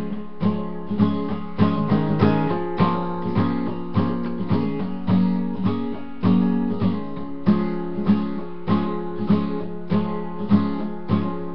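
Acoustic guitar strummed in a steady rhythm, playing an instrumental break between sung verses of a song, with no voice.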